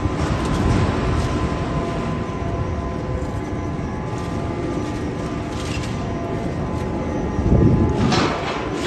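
Heavy industrial machinery running with a steady low rumble and hum. About seven and a half seconds in it surges briefly louder, with a harsh grinding crunch.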